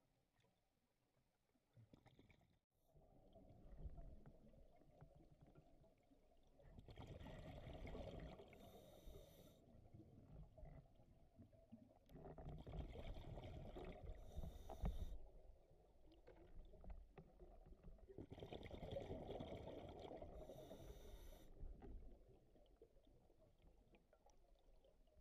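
A scuba diver breathing through a regulator, heard underwater: three breaths about six seconds apart, each a rush of exhaled bubbles with a hiss of the regulator near its end.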